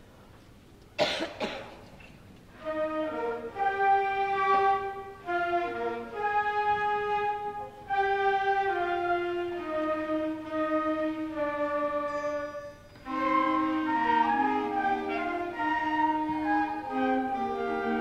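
A cough about a second in, then a middle school concert band of woodwinds and brass starts playing, held chords with a melody moving on top. Near 13 seconds the band breaks off briefly and comes back in fuller, with lower notes.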